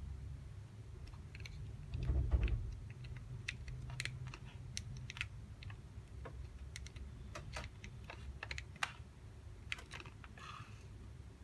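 Small plastic model parts clicking and tapping irregularly as they are handled, with one heavier thump about two seconds in, over a steady low hum.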